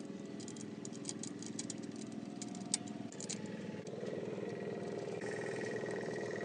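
A small motor running steadily with a rattle of clicks over it, turning rougher about four seconds in with a thin high whine.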